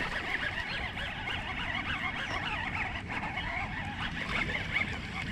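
A chorus of many birds chirping and calling at once, over a steady low rumble.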